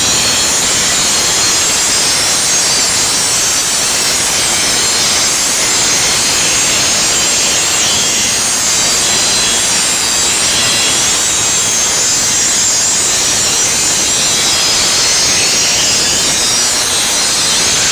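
Welding arc sounding as a steady, harsh hiss with no pitch to it, holding at one level throughout.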